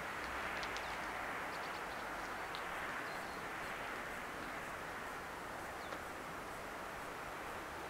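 Steady rushing noise that slowly eases, with a few short, high chirps over it.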